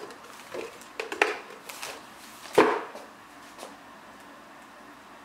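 Hard clicks and knocks from the parts of a soldering station's iron stand being handled and fitted together, with one louder knock about two and a half seconds in, then quiet.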